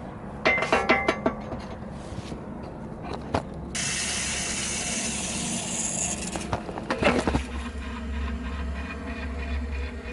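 A metal shutoff key clicks and scrapes as the water is turned back on at the curb stop. A steady rushing hiss of water follows for about two and a half seconds, then more clanks, and a low steady hum starts near the end.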